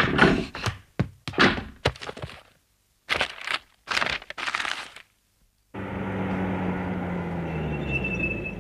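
A quick run of sharp knocks and thuds over the first five seconds, then, about six seconds in, the steady running hum of a vintage motor car's engine comes in under a hiss of street noise.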